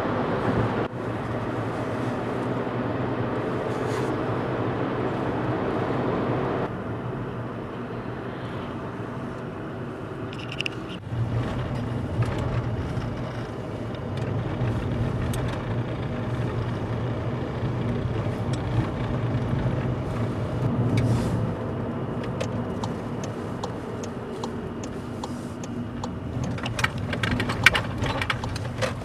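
Car driving, heard from inside the cabin: a steady engine and road hum, with a few sharp clatters near the end.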